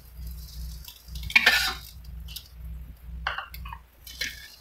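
Metal spatula scraping and clinking against a metal wok while scrambled egg is scooped out: a few short, separate scrapes, the loudest about a second and a half in.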